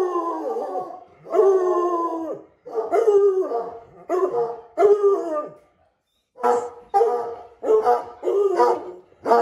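Coonhound baying: a run of drawn-out howling calls, each falling in pitch, repeated about once a second with a brief pause about six seconds in.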